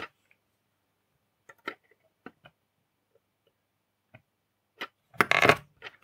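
Small sharp clicks and taps of steel tweezers against the microcontroller chip and circuit board as the chip is nudged into alignment, followed by a louder clatter about five seconds in as the board is shifted on the desk.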